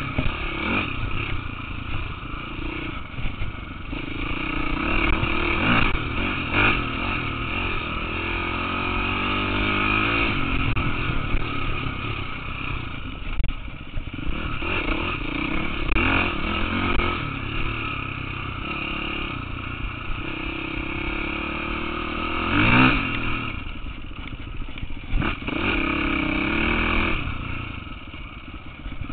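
KTM 450 dirt bike's single-cylinder four-stroke engine under way on trail, its pitch rising and falling as the throttle opens and closes, with a few short knocks and clatter along the way.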